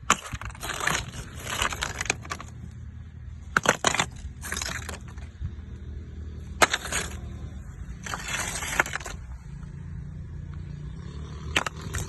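Excavator working rock: the engine runs low and steady underneath while rock and the bucket clatter and scrape in several bursts.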